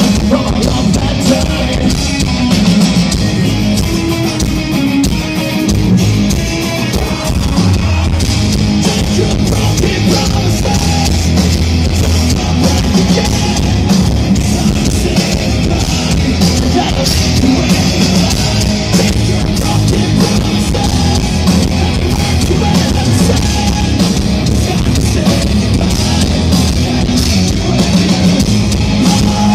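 A rock band playing live through a large outdoor PA, loud and steady: distorted electric guitars, bass guitar and a drum kit.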